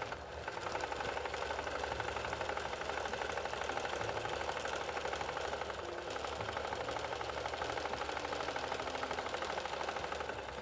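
Electric sewing machine running steadily at speed, the needle stitching through layers of fabric in a rapid, even rhythm.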